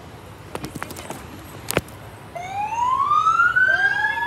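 Fire engine siren starting just past halfway, its wail rising in pitch, with a second siren tone rising in behind it near the end. Before it, a few sharp clicks, the loudest a little under two seconds in.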